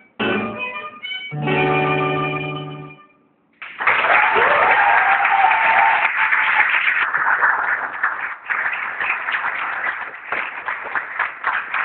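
A violin duet plays its last notes and a held final chord that fades away. After a short silence, applause breaks out and carries on, with a rising whoop from the audience about a second into it. The recording is thin and phone-recorded.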